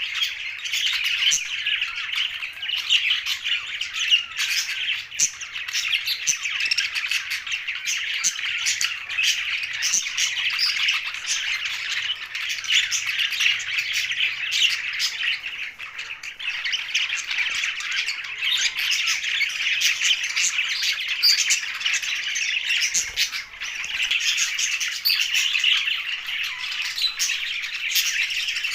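A flock of budgerigars, English and blue budgies, chattering nonstop: a dense overlapping warble of many short chirps and squawks, easing briefly twice in the second half.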